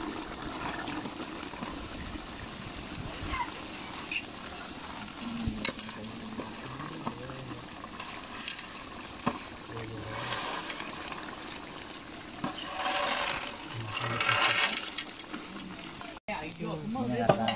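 A pot of tamarind gravy (vatha kuzhambu) boiling and bubbling as small dried vegetables are dropped into it, with scattered light clicks. The boiling noise swells louder a couple of times.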